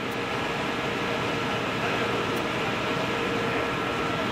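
Steady mechanical hum with a couple of faint held tones in it, running evenly without change.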